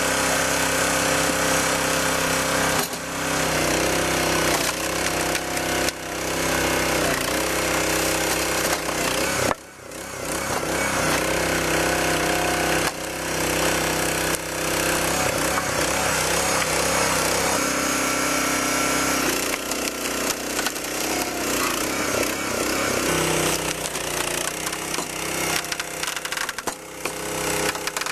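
Split-Fire 3255 log splitter's small gas engine running steadily as the hydraulic wedge works through logs, with wood cracking and splitting apart. The engine's note dips briefly several times and shifts about two-thirds of the way through.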